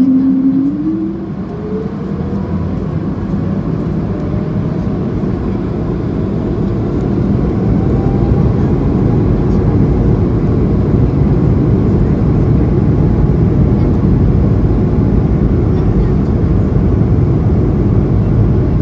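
Airbus A220-300's Pratt & Whitney PW1500G geared turbofan engines heard from inside the cabin. A strong hum steps up in pitch about a second in as thrust comes up, then a faint whine climbs slowly while a deep rumble and rush grow steadily louder.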